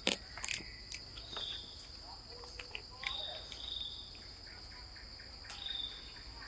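Steady, high-pitched insect drone from the forest canopy, with shorter high chirps coming and going over it. A few sharp clicks sound near the start.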